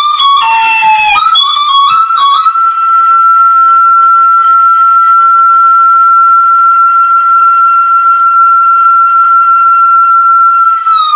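Hmong raj flute playing a few quick melodic notes, then holding one long, steady high note for about eight seconds that bends down near the end.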